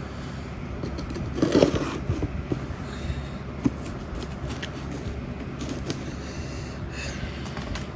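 Small cardboard parcel being opened and unpacked by hand: scraping and rustling of cardboard and packing material, with scattered clicks and knocks. The loudest scrape comes about one and a half seconds in.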